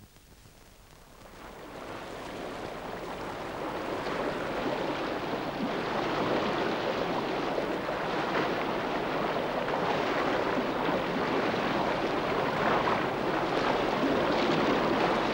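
Rough sea, waves breaking and washing with wind, swelling up from quiet over the first few seconds into a steady rush.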